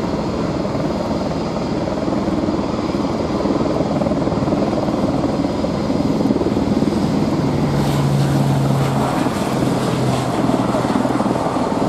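Dornier 228-212's twin Garrett TPE331 turboprops at take-off power as the aircraft accelerates down the runway and lifts off. A low propeller hum comes in about two-thirds of the way through and drops in pitch near the end.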